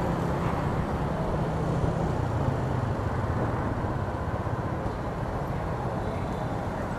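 Motorbike ride through city street traffic: a steady low engine drone with road and wind noise, and the surrounding scooters.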